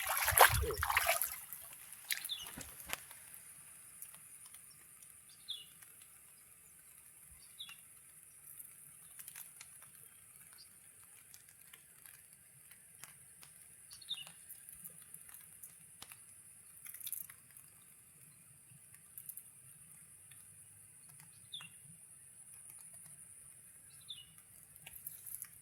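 Quiet waterside ambience in light drizzle: a bird gives a short falling chirp every few seconds, with scattered faint drips and ticks. A brief loud noise comes right at the start.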